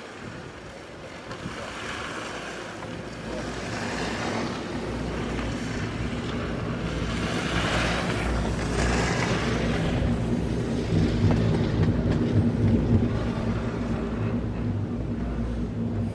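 CTEC fixed-grip quad chairlift running, heard from the chair: wind on the microphone over a steady low rumble of the haul rope and tower sheaves. The rumble builds as the chair nears and passes a tower about eight seconds in, and is loudest in the second half.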